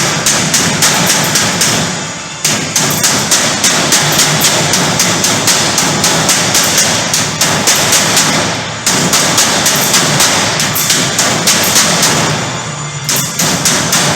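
Rapid hammering, about five sharp blows a second, in three runs with short pauses between them.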